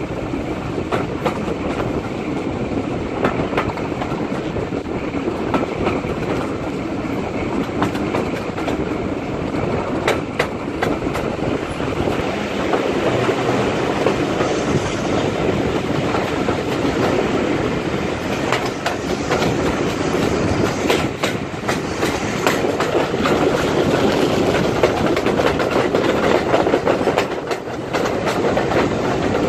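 Heritage railway train running along the line: a steady rumble with frequent clicks from the wheels on the rails.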